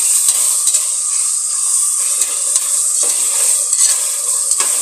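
Sliced onions and whole green chillies sizzling in hot oil in a pressure cooker pot, stirred with a spatula that scrapes lightly against the pot now and then. The onions are being sautéed towards golden brown.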